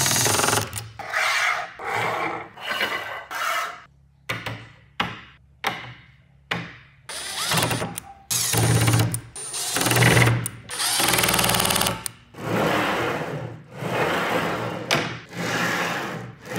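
Cordless power driver run in short bursts, about fifteen in a row, driving screws through SBR linear rails and their bearing blocks into plywood.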